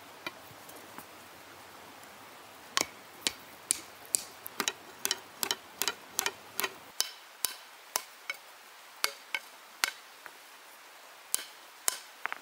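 Hand-held stone hammer striking glowing iron on a boulder anvil, forging an axe: a series of sharp, briefly ringing blows, about two a second, starting about three seconds in and thinning out near the end.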